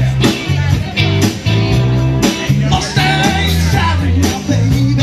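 Rock and roll band music with guitar, a moving bass line and a steady drum beat of about two hits a second.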